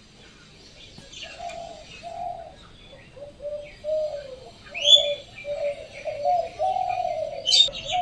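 A dove cooing in a run of short, low notes, with small birds chirping higher over it; the loudest chirps come about five seconds in and near the end.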